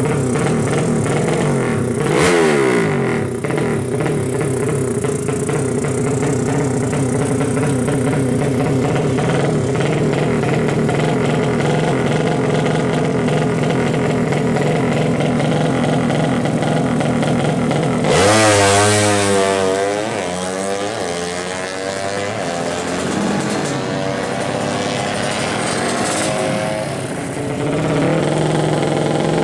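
Modified 200cc drag-racing motorcycle engine running at a fast idle. There is a short throttle blip about two seconds in, a bigger rev that rises and falls about two-thirds of the way through, and more revving near the end.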